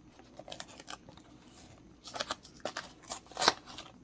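Small cardboard snack-bar box being opened by hand: a series of short scrapes and tears of the cardboard flap, the loudest near the end.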